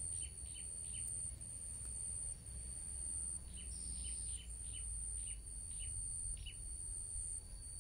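A small bird chirping in short, quick notes: a few at the start, then a longer run of them from about three and a half seconds in. Underneath are a low rumble and a steady thin high tone.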